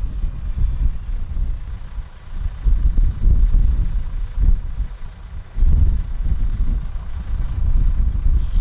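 A motor vehicle's engine running under a gusty low rumble of wind on the microphone.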